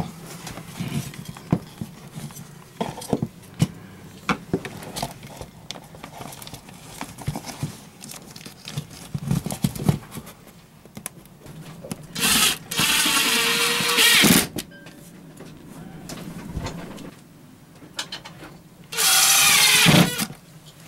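Power drill driving screws to mount the ELCI panel to a wooden bulkhead: two runs of about two seconds each, one about twelve seconds in and one near the end, the pitch dropping toward the end of each run. Before them come light clicks and rustles of the panel being handled and pressed into its cutout.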